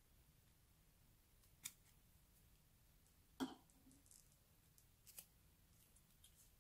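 Scissors snipping the plastic tip off a slime-filled piping bag: a short snip about a second and a half in and a louder one about three and a half seconds in, followed by a few faint ticks.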